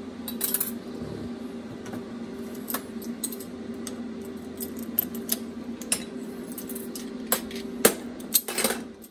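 Scattered metal clinks and clicks of locking pliers and a small welded steel part being handled on a steel workbench, the sharpest ones near the end, over a steady hum.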